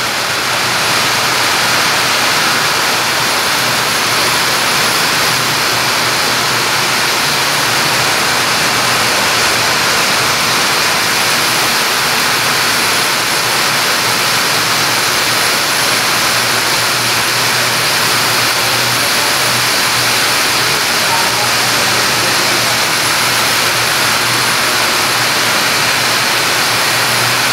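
Viscose two-for-one (TFO) doubling and twisting machine running: a loud, steady whir and hiss from its many spindles, with a steady low hum underneath.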